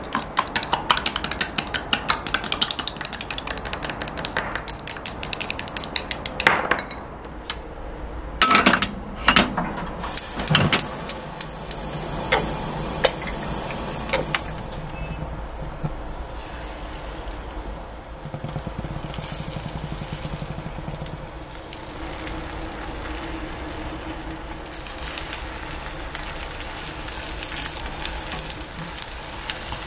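Chopsticks beating eggs in a glass bowl, a fast run of light clinks, then a few knocks of kitchenware. A frying pan on a gas stove then hisses steadily as oil heats, and near the end egg white sizzles in the pan with a spatula scraping against it.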